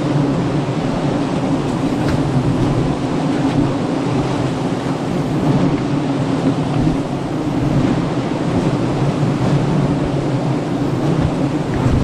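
A large mass of honeybees buzzing in a steady, dense hum that does not let up.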